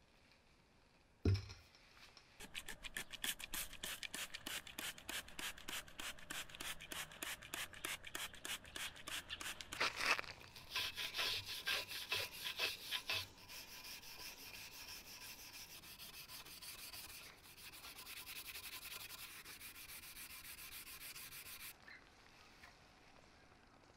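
A hand brush scrubbing a rusty cast-iron drill press table with quick back-and-forth strokes, about four a second, which turn into a steadier, continuous scratchy scrubbing about halfway through. A single knock comes shortly after the start.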